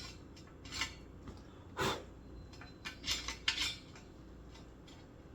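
A handful of light metallic clinks and clacks, about six over the first four seconds, with one louder knock about two seconds in: metal tools being set down and handled against steel pipe while an angle is marked out.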